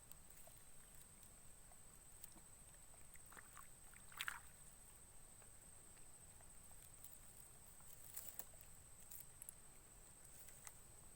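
Near silence: a faint steady high-pitched tone, with one brief louder sound about four seconds in and a few faint ticks.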